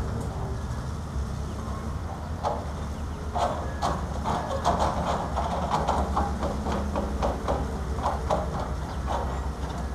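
An excavator bucket drops broken concrete and rock into a dump truck's bed, with a long run of irregular clattering and knocking from about two and a half seconds in until near the end. Under it is the steady low drone of the diesel engines running.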